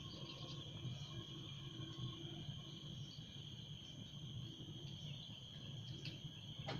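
Steady high-pitched chirring of an insect chorus over a low background rumble, with a single sharp click near the end.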